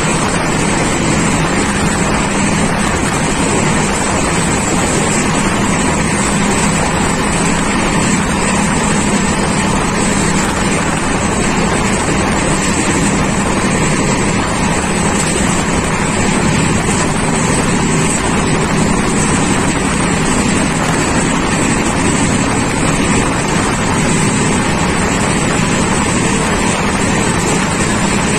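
Passenger train running steadily at speed, heard from an open window: a constant rumble of wheels on rails mixed with wind rushing past the microphone.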